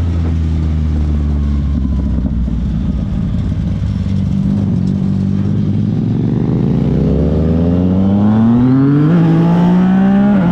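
Yamaha MT motorcycle engine running at low revs for about six seconds, then accelerating with steadily rising pitch. A quick upshift briefly breaks the climb about nine seconds in, and the revs drop again at a second gear change near the end.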